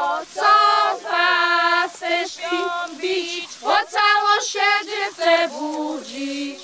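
High women's voices singing a folk song together without instruments, in short phrases that close on a lower held note that stops just before the end.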